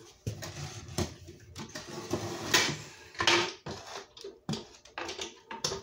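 Handling noise as objects are moved about and set down on a table: irregular clicks and knocks mixed with rustling.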